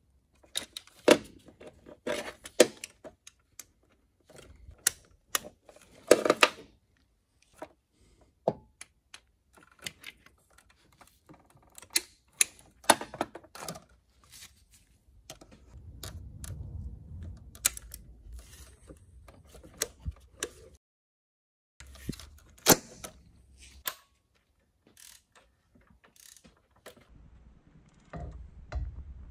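Metal hand tools clinking and knocking against engine parts during timing belt work on a Peugeot 2.0 HDi diesel engine: irregular sharp clanks, with a stretch of low rumbling about halfway through.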